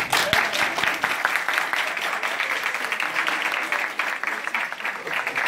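Audience applauding: many hands clapping in a dense, steady run.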